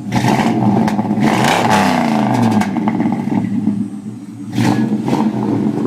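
1995 Chevrolet Impala's LT1 V8 revved through its dual exhaust and heard at the tailpipes. There is a long rev at the start with the pitch climbing and falling, then it drops back and is blipped again about four and a half seconds in.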